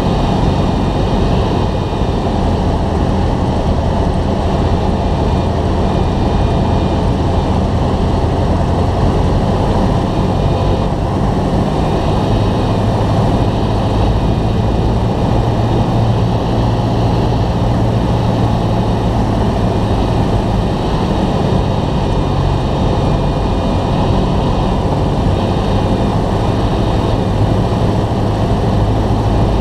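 Cessna 172's piston engine and propeller droning steadily on approach to land; the low hum grows a little stronger about twelve seconds in.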